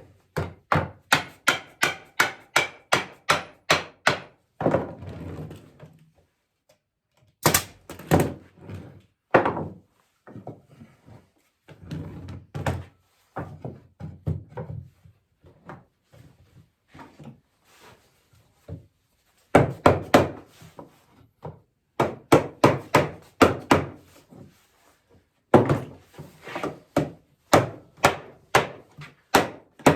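Repeated hammer blows on wood, in quick runs of about three or four strikes a second with short pauses between, driving the rungs into the posts of a walnut rocking chair.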